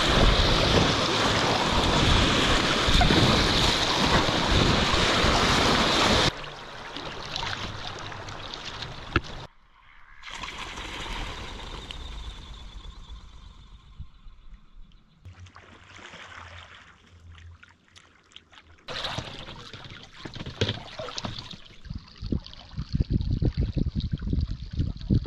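River water rushing and splashing around a packraft running a riffle, loud for about the first six seconds. It then cuts abruptly several times to quieter water lapping and splashing against the raft, and grows louder again with choppy splashes near the end.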